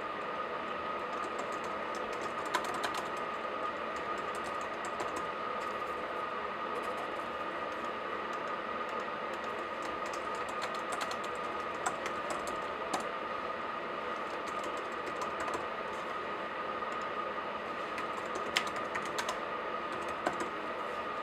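Laptop keyboard typing: irregular runs of key clicks with pauses between them, over a steady background hiss.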